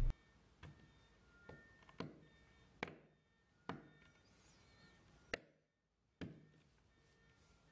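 About seven sharp, separate clicks and light knocks at uneven spacing: a metal concealed cabinet hinge being handled and set into its cup hole on a painted cabinet door.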